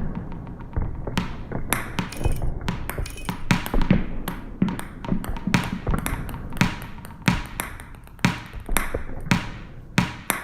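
Layered percussive strikes from kinetic objects: irregular hits, several a second, each leaving a short ring.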